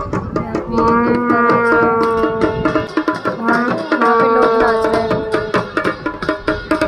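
Music: fast, steady drumming with long held melody notes laid over it, one phrase starting about a second in and another about four seconds in.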